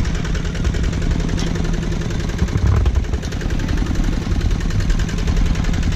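Two-wheel walking tractor's single-cylinder diesel engine running steadily with a fast, even putter while towing a loaded trailer over a rough dirt track.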